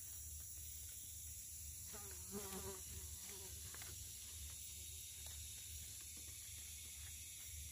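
Faint, steady high-pitched chorus of rainforest insects, with a short wavering buzz about two seconds in.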